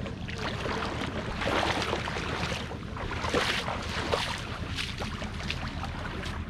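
Wind rumbling on the microphone at the shoreline, with water washing over the sand and swelling in a few rushing surges.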